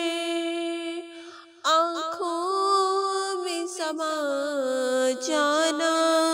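A woman's voice singing a naat with no instruments, drawing out long held notes with slow melodic turns; the voice fades briefly about a second and a half in, then comes back in strongly.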